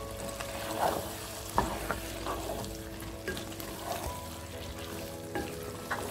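Wooden spatula stirring chicken sukka in a non-stick pan, with several irregular scraping strokes through the thick gravy over a light sizzle as the sauce cooks down uncovered.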